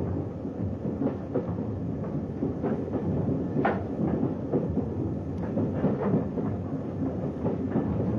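Train running along the track: a steady rumble with irregular sharp clicks of wheels passing over rail joints, one louder click a little past the middle.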